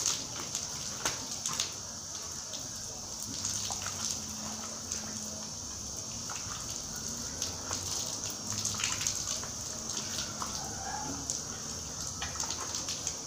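Water running from a garden hose, pouring onto a person's head and body and splashing on the ground: a steady hiss with scattered small splashes.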